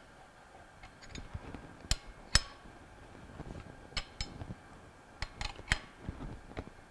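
Steel open-end wrench clinking on the hex head of a jaw puller's forcing screw as it is turned and repositioned, tightening the puller to draw a pump's cover plate and impeller off the motor shaft. Irregular sharp metal clicks, the loudest about two and four seconds in.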